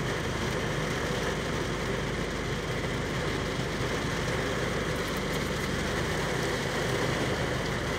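Steady rain falling, an even hiss with a faint low hum beneath it.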